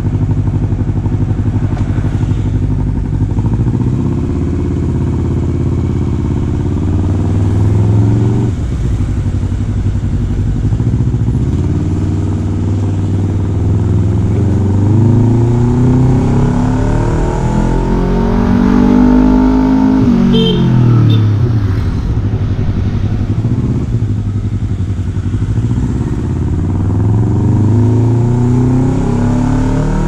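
Honda CBR250RR parallel-twin engine running through a Leovince LV One slip-on exhaust with its dB killer fitted, ridden at low speed. The engine note rises and falls repeatedly with the throttle: a long climb in pitch from about fourteen seconds in, then a quick fall just after twenty seconds, and another climb near the end.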